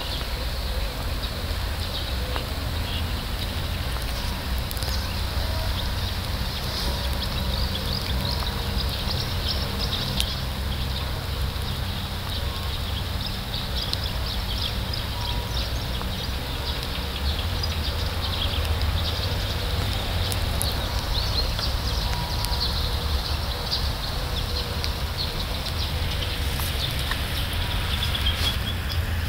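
Outdoor background: birds chirping in the distance over a steady low rumble.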